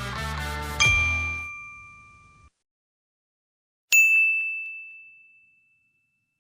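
Background music ends on a final ringing note about a second in and fades out, followed by silence and then a single bright chime struck about four seconds in, ringing one clear tone as it fades.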